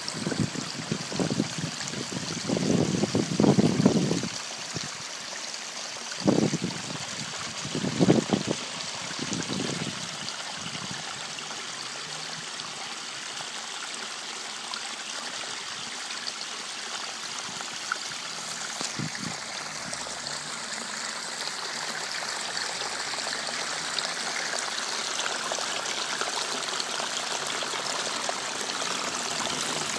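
Garden waterfall spilling over stacked stone into a koi pond: a steady rush and splash of falling water, slightly louder in the last third. A few loud low bumps come in the first ten seconds.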